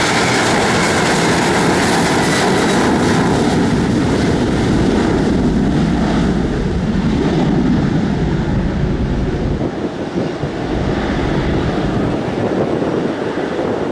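Airliner's engines running loud as it passes close by, with a high whine that sinks slightly in pitch, easing off after about ten seconds.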